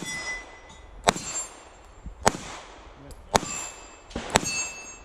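Springfield Armory EMP 1911-style pistol fired in a slow, steady string, a shot about every second, each shot followed by the ringing clang of a struck steel target.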